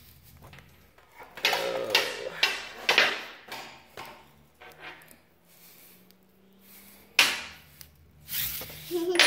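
Blue-handled steel chisel scraping and pressing into corrugated cardboard in a few short strokes as it scores and cuts through, with a sharp click about seven seconds in.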